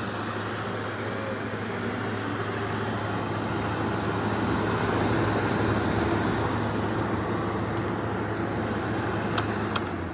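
Frigidaire FFRA051WAE 5,000 BTU window air conditioner running, a steady hum of its compressor and fan with rushing air. Two sharp clicks come near the end.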